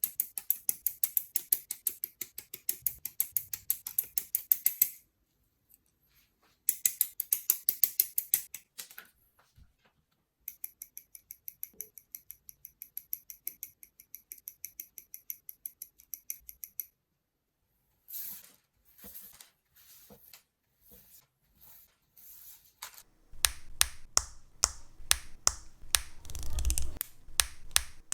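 Sharp plastic clicks and snaps from assembling a Bandai High Grade Gunpla model kit. They come in quick, even runs of several clicks a second, then as single snaps about a second apart, and then as a dense run of clicks near the end.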